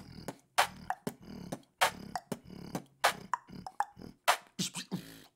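Human beatboxing picked up by a Tonor TC-20 XLR condenser microphone set at its farthest test distance: a steady beat of sharp snare-like hits about once a second, with lighter clicks and low hummed bass sounds between.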